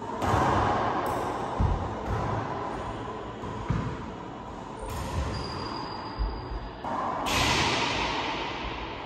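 Racquetball rally: the rubber ball smacks off racquets and court walls several times, each hit echoing around the enclosed court.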